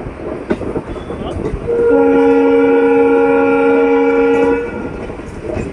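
A WAP-4 electric locomotive's EMD-type horn sounds one held chord of several tones for about three seconds, over the rumble and clickety-clack of the moving train.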